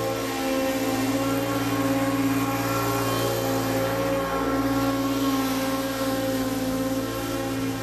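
Engine of a 2018 Encore Rage 32-inch stand-on zero-turn mower running at a steady speed.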